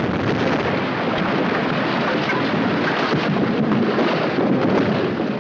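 Vintage stock explosion sound effect of the kind used in 1960s–1990s TV shows: the long, steady rumble that follows the blast.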